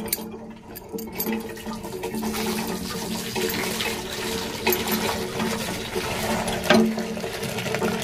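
Water from a tube-well hand pump gushing steadily into a bucket as it fills, with a few sharp knocks, the loudest near the end.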